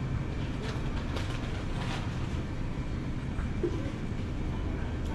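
Supermarket ambience: a steady low rumble with a few faint clicks and light clatters.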